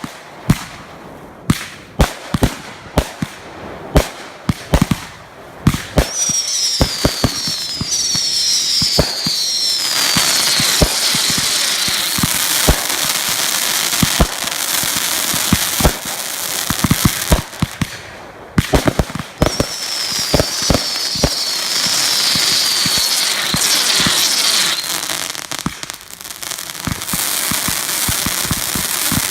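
Fireworks going off: a quick run of sharp bangs, then long stretches of dense crackling with repeated short falling whistles, twice, with more bangs scattered in between.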